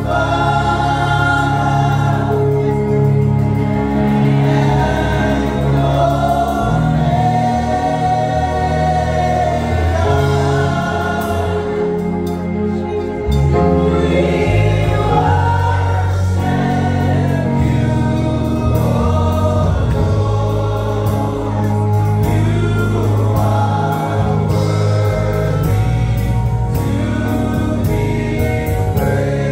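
Gospel praise team singing together in harmony over steady instrumental backing with a strong bass line.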